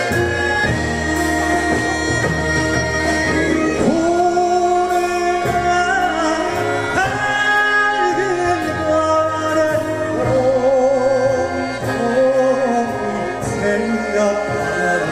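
A male folk singer sings long, held notes with a wide vibrato, accompanied by a Korean traditional orchestra of gayageum zithers and bowed strings.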